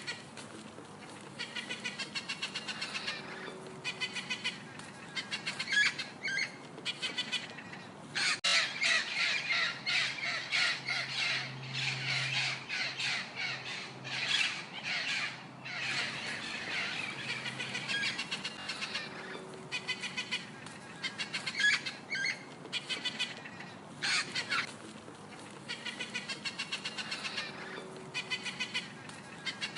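Parrot calling: rapid, repeated squawks and chattering calls, densest and loudest for several seconds near the middle.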